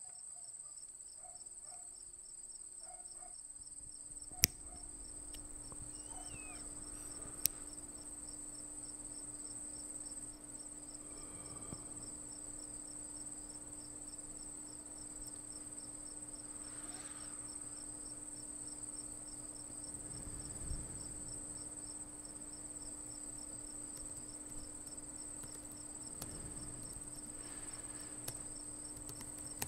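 Crickets chirring steadily, a continuous high trill with an even pulsing chirp under it. A low steady hum joins about three seconds in, and two sharp clicks stand out about four and seven seconds in.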